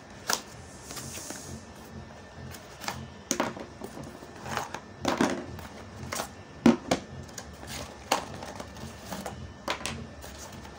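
Cardboard packaging being opened and slid apart, with irregular clicks and short scrapes as the small stand's plastic and metal parts are taken out and set down on a stone tabletop; the sharpest knock comes about two-thirds of the way through.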